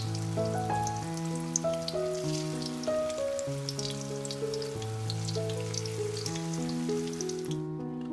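Background music: a melody of plain sustained notes over a slow bass line. Under it, the dense crackle of food frying in hot oil, which stops shortly before the end.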